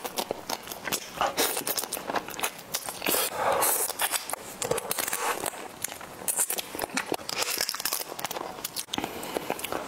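Close-up wet sucking and slurping of raw marinated crab meat from the shell and legs, coming in repeated bursts about every second or two, with many small clicks of lips and mouth between them.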